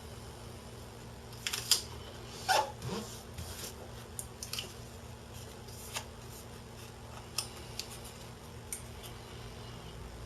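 Scattered sharp clicks and snips from hand work on small parts. One brief sliding scrape falls in pitch about two and a half seconds in. A steady electrical hum runs underneath.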